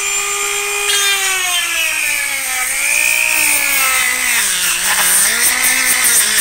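Dremel rotary tool with a sanding drum running with a steady whine while grinding out a hole in a hard plastic chair backrest part. Its pitch sags and wavers from about two seconds in as the drum bears into the plastic, then climbs back near the end.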